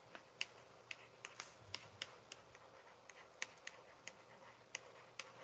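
Faint, light clicks at an uneven pace, about three a second, over near silence.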